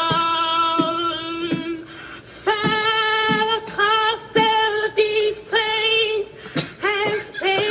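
A high solo singing voice played back from a talent-show audition video: a long held note, then a short pause and a string of short, steady sung notes.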